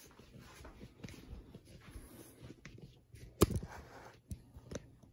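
Handling noise of a phone rubbing against clothing as it is moved, with one sharp knock about three and a half seconds in and two smaller clicks near the end.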